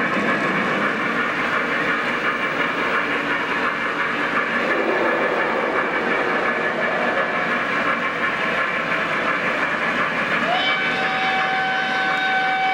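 O gauge model trains rolling along the track with a steady rumbling clatter. About ten and a half seconds in, the model steam locomotive's electronic steam whistle sounds: a chord that slides up into pitch and holds.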